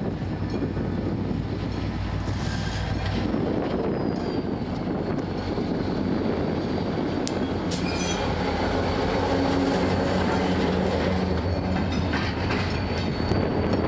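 General Motors GT22CW diesel locomotive running light past at close range, its EMD two-stroke diesel engine running steadily. Its wheels click over rail joints around the middle and near the end, with a thin high wheel squeal on the rails.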